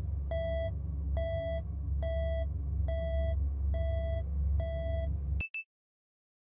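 Electronic beeping repeating steadily, a little more than one short beep a second, over a deep steady rumble. The beeps and the rumble stop abruptly, followed by one short high blip.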